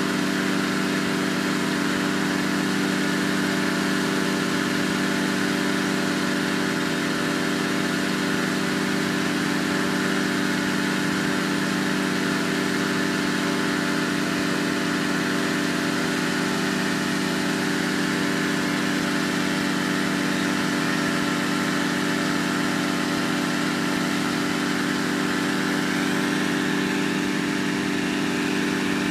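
Petrol-engined inflator fan running steadily, blowing cold air into a hot air balloon envelope during cold inflation.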